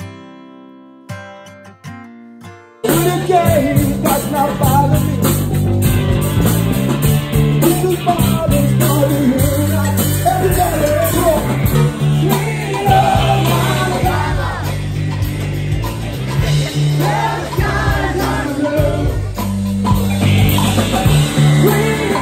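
Quieter guitar music at first, then about three seconds in it jumps suddenly to a live rock band playing loudly: singing over electric guitars, bass, keyboard and drums.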